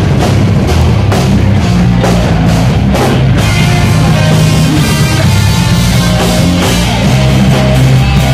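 Live rock band playing loudly: distorted electric guitar over a pounding drum kit, heard through a small camera's overloaded microphone. The drum hits are strongest for the first few seconds, then a held, pitched guitar line comes forward.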